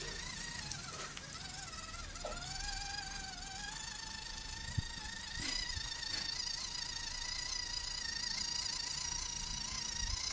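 Steady electric motor whine, a pitched hum with overtones; its pitch wavers and dips in the first couple of seconds, then holds steady. A single sharp click comes just before the middle.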